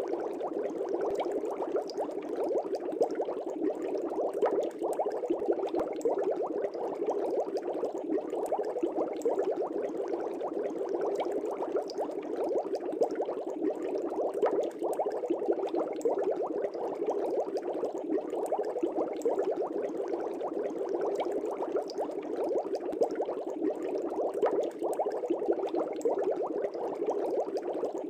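Aquarium air bubbles rising and bursting at the water surface: a steady, dense bubbling made of countless small pops and gurgles.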